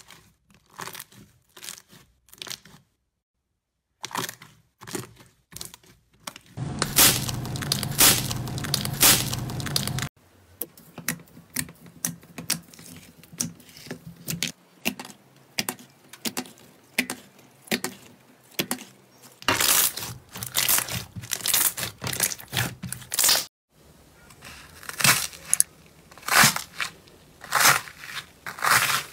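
Slime being squeezed, poked and pulled by hand, giving quick runs of sticky clicks, pops and crackles, broken by a couple of brief silences. Near the end a pink slime with a crust and foam beads crackles and tears as its surface is broken up.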